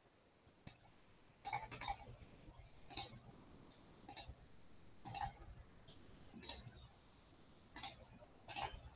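Computer mouse clicking: faint, short clicks about once a second, some coming in quick clusters.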